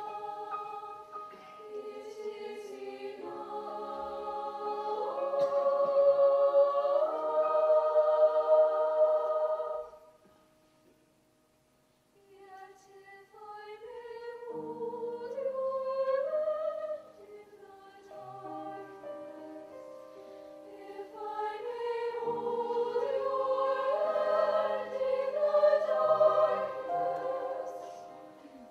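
Treble choir of female voices singing with piano accompaniment. The voices swell to a loud peak, cut off together about ten seconds in for a moment of near silence, then come back softly over low piano notes and build again before fading near the end.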